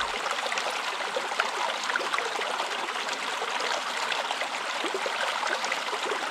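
Stream water running and babbling steadily.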